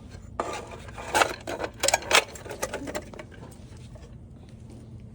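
Cover being fitted back over a servo assembly: a run of clicks and knocks over about two and a half seconds, the loudest about one and two seconds in, then quieter handling.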